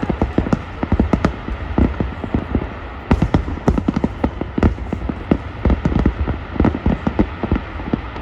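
Fireworks display: a rapid, irregular string of shell bursts and bangs, several a second, over a steady low rumble.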